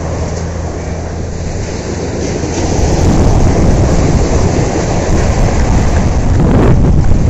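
Wind buffeting the microphone in a rumbling rush that grows louder about two and a half seconds in, over a low steady hum.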